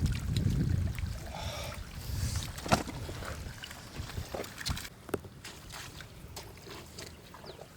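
Water sloshing and splashing with scattered clicks and knocks, one sharper knock about a third of the way in.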